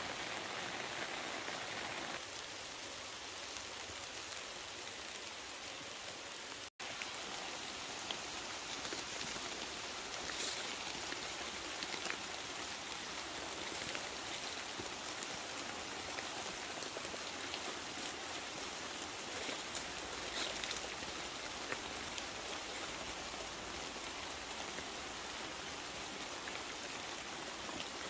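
Steady rain falling, a continuous hiss with scattered drops ticking on surfaces. The sound breaks off for an instant about seven seconds in.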